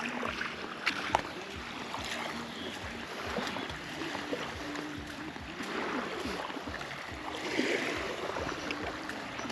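Small waves lapping at the water's edge, with scattered light clicks and a faint low hum.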